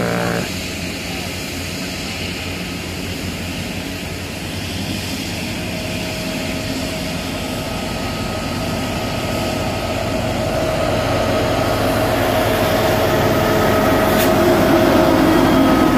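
Union Pacific diesel freight locomotives approaching and passing close by, their engines and wheels growing steadily louder, with a steady whine running through it. A single sharp click comes near the end.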